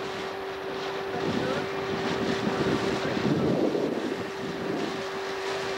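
Motor of a coaching launch running steadily with a constant hum, under wind rumble on the microphone and the rush of water.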